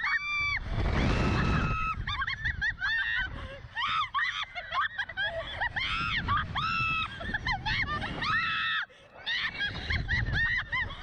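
Two women on a Slingshot reverse-bungee ride screaming and laughing in many short, high shrieks, with rushes of wind over the ride's microphone as the capsule is flung up, about a second in and again near the end.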